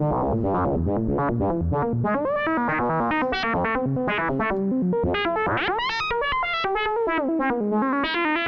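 Buchla Music Easel synthesizer playing a fast stream of random stepped notes, its pitch and timbre set by blended random voltages from the Toolbox card, which is fed by the modulation oscillator. The notes change several times a second, and there is a brighter rising sweep about five and a half seconds in.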